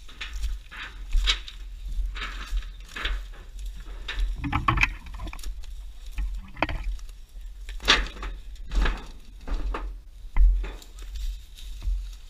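Footsteps crunching through dry leaf litter, twigs and brush, about one step a second, over a low rumble.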